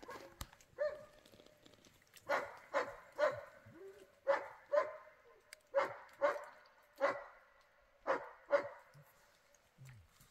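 A dog barking repeatedly: over a dozen short barks, often in quick twos and threes about half a second apart, with short pauses between the groups.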